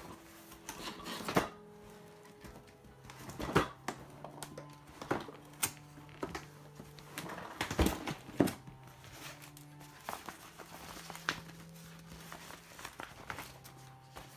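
Cardboard box and its packing being opened and handled: irregular sharp knocks, scrapes and rustles of cardboard, then near the end the crinkle of a bag being pulled out. Quiet background music with steady held notes plays under it.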